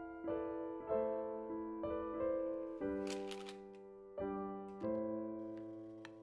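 Soft solo piano background music, notes struck about twice a second, ending on a long chord that fades away. A brief hiss is heard about three seconds in.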